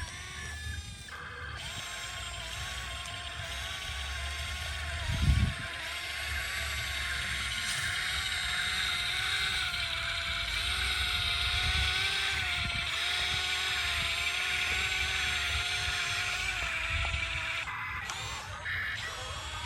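YIGONG YG258C excavator's engine and hydraulics running steadily, with a wavering whine that rises and falls slightly, and a single low thump about five seconds in.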